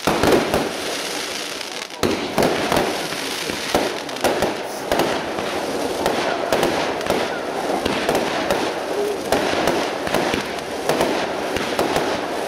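Professional fireworks display: a rapid barrage of aerial shells and ground-fired tails bursting, with many sharp bangs in quick succession and no pause between them.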